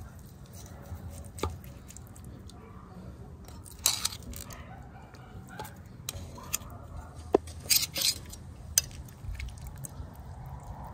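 A steel knife and metal tongs clinking and scraping against a large steel pan and china plates as pieces of baked lamb are cut and lifted out of the juices, with several sharp clinks.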